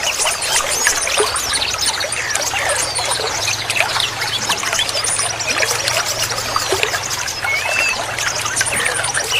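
Trickling water running steadily under a busy chorus of small birds chirping and trilling, with many short rising and falling notes and fast high trills.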